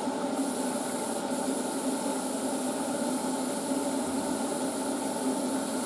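Beko WM6143S washing machine running early in a cotton wash cycle: a steady hum with a hiss over it, the machine working on its newly fitted control board.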